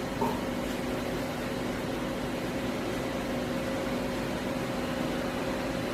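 Doosan Puma 600L CNC lathe running with a steady hum over a hiss. There is a brief blip just after the start.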